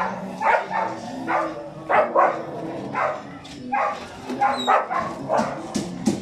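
Dogs barking: short repeated barks at about two a second, with no pause.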